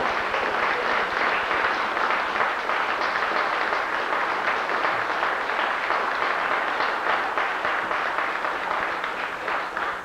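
Audience applauding, a dense steady clapping that dies away at the end.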